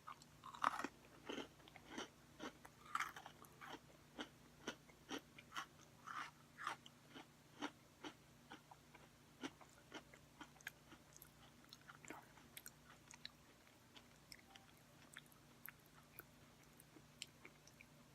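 Close-up chewing of crunchy Oreo sandwich cookies: a run of small crisp crunches and mouth clicks, frequent at first and thinning out in the second half.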